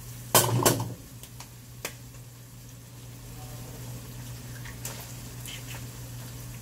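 An egg cracked and dropped into a hot pan of frying tuna sisig: a loud crack-and-splat about half a second in, then the pan sizzling quietly with a steady low hum underneath and a few light utensil clicks.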